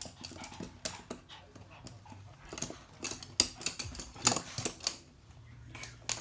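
Toy poodles scampering on a hard floor: irregular sharp clicks of their claws, with a few short breathy dog sounds.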